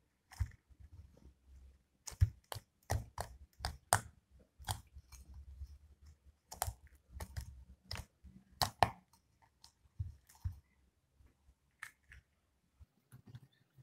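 Homemade glitter slime being kneaded and folded by hand, giving off irregular clicks and pops. The pops come thickly for the first several seconds and thin out near the end, as the slime is lifted and stretched.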